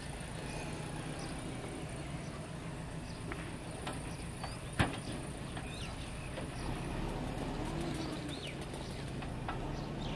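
Roadside ambience of a steady, high-pitched insect drone with scattered short bird chirps and a faint low hum. A single sharp click comes about five seconds in, and the insect drone stops about seven seconds in.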